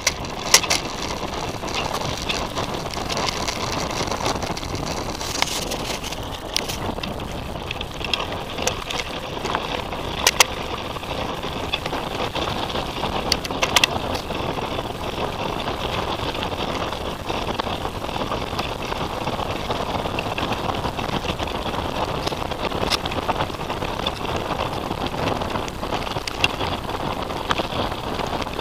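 Titus FTM mountain bike riding fast over a forest dirt trail, heard from a camera mounted on the bike: a steady rolling rattle of tyres and frame, with sharp knocks over bumps, the loudest about ten and fourteen seconds in.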